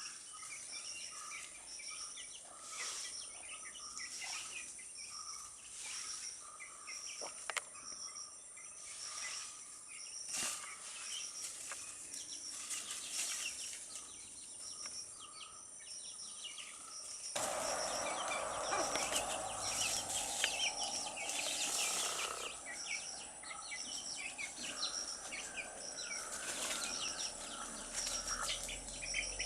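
Insects chirping in a steady, evenly repeating rhythm, with scattered short high peeps from young chicks. About two-thirds of the way through, a fuller, louder noise joins in.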